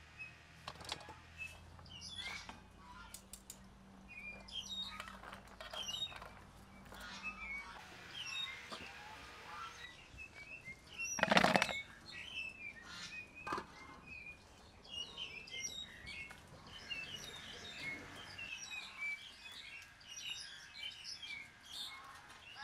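Small birds chirping over and over, with one short, loud clatter about halfway through.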